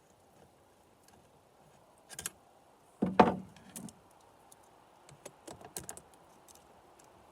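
Small metal clicks and rattles of chainsaw bar and chain parts being handled while the chain tension adjuster is worked by hand, with a short clatter about two seconds in and a louder metal clunk about three seconds in.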